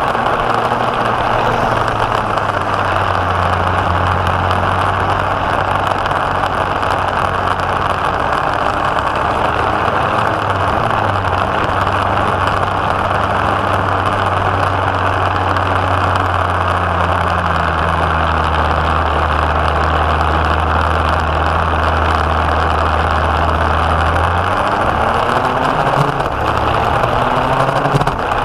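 Go-kart engine running hard as the kart laps the track, heard from a camera mounted on the kart. The engine note holds steady for long stretches and shifts in pitch about three-quarters of the way through as the driver goes through the corners.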